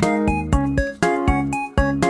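Background music: light, playful keyboard tune with a beat about twice a second.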